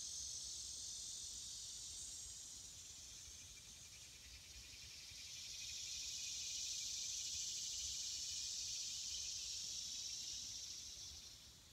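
Insect chorus: a high, steady buzzing from the woods that dips about four seconds in, swells again a second later and fades out near the end.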